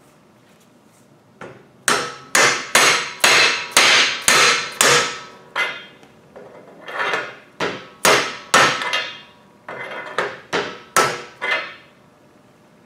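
A mallet striking a steel bearing driver, hammering a bearing down a concrete mixer's barrel spindle onto its next race. The blows are sharp and ring like metal, about two a second, in two runs with a short pause about halfway.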